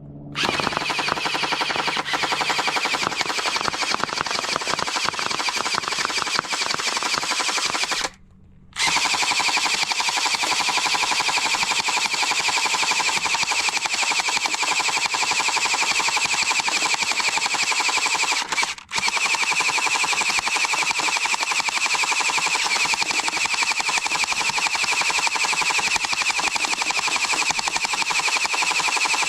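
Electric gel ball blaster pistol firing on full auto: a steady motor whine under rapid-fire shots, in three long strings broken by short pauses about 8 and 19 seconds in.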